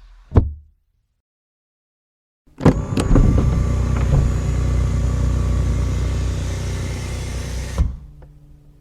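Car sounds heard inside the cabin: a single short thump, then silence. After that a steady mechanical running sound with a strong low hum starts with a clack, runs for about five seconds and stops with another clack, then dies away.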